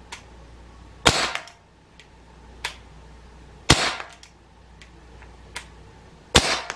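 Three sharp shots from a Gamo PR-776 .177 CO2 pellet revolver, evenly spaced about two and a half seconds apart, each with a short ringing tail and fainter clicks between them. They are fired on a CO2 cartridge that the shooter thinks is getting low.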